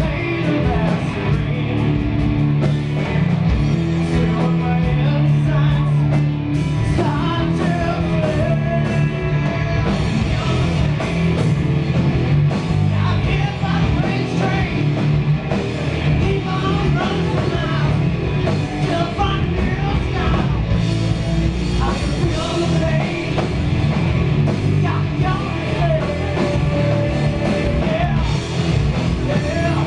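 Live rock band playing: distorted electric guitars, bass and drums, with a singer's vocals over them, heard through a handheld camera's microphone.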